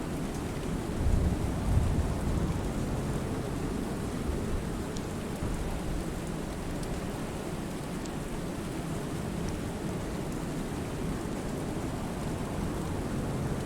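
Steady rainfall on a lake, an even hiss of rain with a few scattered drop ticks. A low rumble of thunder swells about a second in and fades back into the rain.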